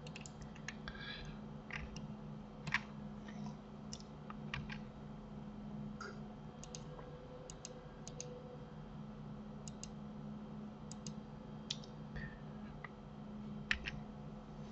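Scattered clicks of a computer mouse and keyboard keys, some in quick pairs, over a low steady hum.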